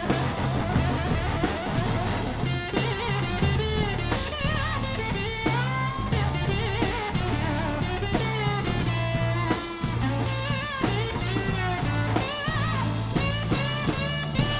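Live blues-rock band playing an instrumental passage: a lead electric guitar line full of bent notes over drum kit, bass and rhythm electric guitar.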